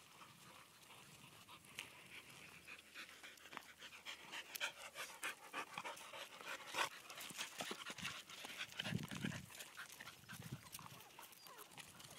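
A dog panting in quick, repeated breaths.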